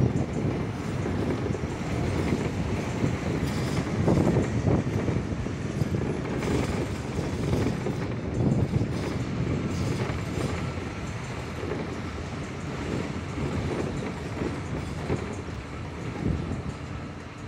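A road vehicle driving along, heard from inside its cabin: a steady low rumble of engine and tyres on the road, with irregular rattling and clatter from the body.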